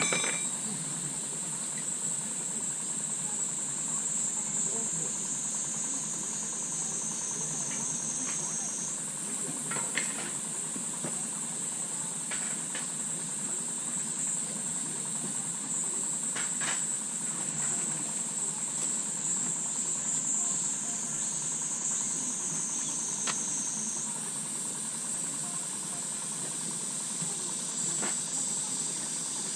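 A steady, high-pitched chorus of insects chirring, shifting slightly in pitch a couple of times, with a few light clicks or knocks now and then.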